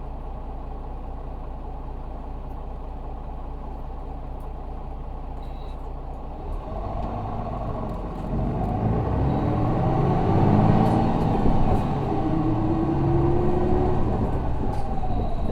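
Isuzu Erga city bus's 6HK1 six-cylinder diesel engine heard from inside the cabin, idling steadily. About six seconds in, it revs up and pulls away, climbing in pitch and getting louder as the bus accelerates.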